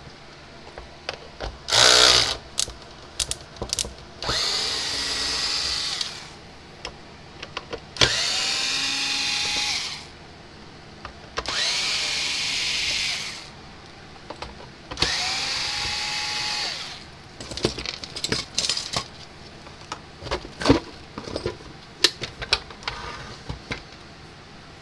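Cordless electric screwdriver running in four bursts of about two seconds each, each rising in pitch as it spins up, backing out the screws of a plastic fence-charger case. Sharp clicks and clatter of plastic fall between the runs and come thicker near the end.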